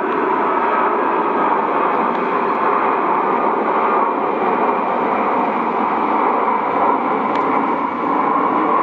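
The four CFM56-5C turbofans of an Airbus A340-200 at climb thrust just after takeoff: a loud, steady jet noise.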